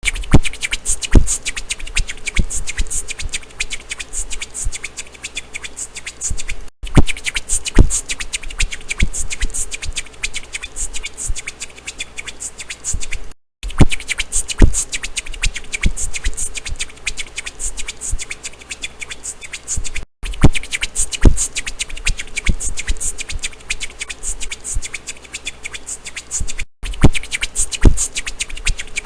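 Percussive mouth sounds in a beatboxing style: clicks, hissing and deep thumps in a busy pattern. The same stretch of about seven seconds plays over and over, with a brief cut-out between each run.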